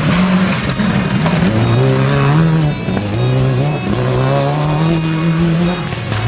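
Subaru Impreza rally car's turbocharged flat-four engine revving hard as it accelerates along loose gravel. Its pitch climbs and drops back about three times as the driver shifts gears.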